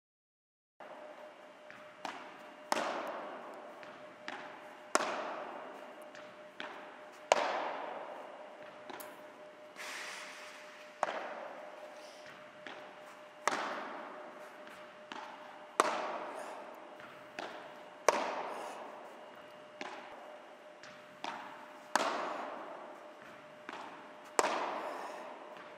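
Padel ball hit over and over, by the racket and off the glass walls and court floor. The hits start a little under a second in, and the loudest come about every two seconds. Each has a long echo, with lighter knocks between them. A faint steady hum lies underneath.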